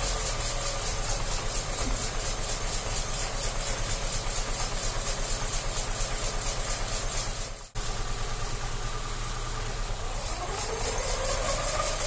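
ZAZ Tavria four-cylinder engine running steadily in gear with its front wheels jacked up and spinning. In the lower gears the gearbox gives no whine. Near the end the engine speeds up and a tone rises in pitch.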